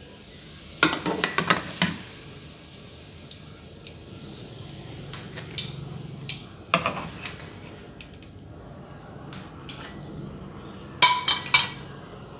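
Metal kitchen utensils clinking and clattering against plates and a frying pan in three short bursts: about a second in, in the middle, and near the end. Between the bursts there is a faint sizzle of egg-dipped bread frying in oil.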